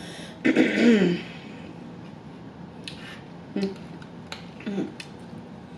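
Eating sounds up close: a short voiced "mm"-like sound with a breathy exhale about half a second in, then a handful of sharp mouth clicks and lip smacks while chewing, some with a brief hum.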